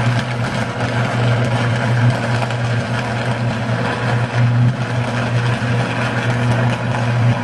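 Electrical arc from a short-circuited substation transformer, burning continuously: a steady low buzz with crackling over it.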